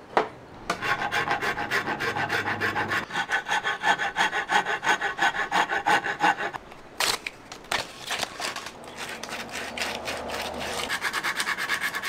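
Half-round wood rasp scraping back and forth across the end of a natural wooden slingshot fork held in a vise, rounding the wood off. The strokes come quickly and evenly, about four a second, break off about six and a half seconds in with a couple of sharp knocks, and resume, faster again near the end.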